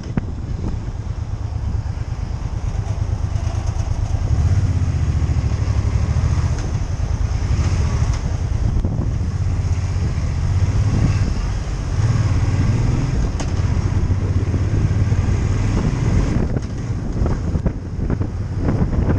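Motorcycle engine running at low road speed, a steady low drone that gets louder about four seconds in.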